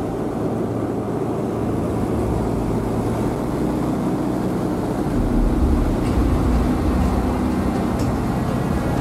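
Single-engine light aircraft's piston engine and propeller droning steadily in flight, heard from inside the cockpit. The low rumble swells briefly about five seconds in.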